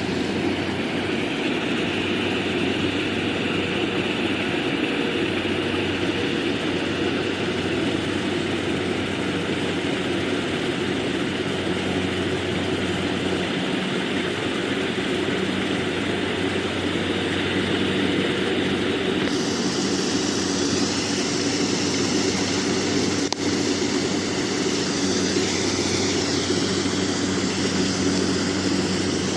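Rice harvester running steadily, with a low engine hum under a mechanical clatter; about two-thirds of the way in, a higher hiss gets louder and stays.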